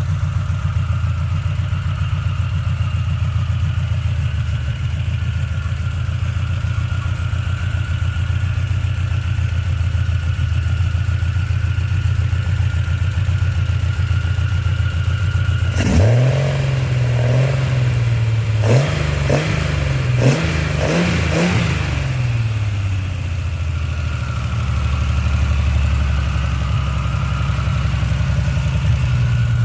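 1976 Triumph TR6's straight-six engine, breathing through triple Weber carburettors, idling on its first run after a rebuild and before its major tuning. About halfway through it is revved once, then blipped several times in quick succession before settling back to idle.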